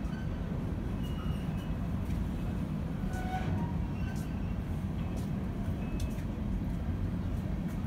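Loaded coal hopper cars rolling slowly over the rails, a steady low rumble with a few brief faint wheel squeals and light clicks.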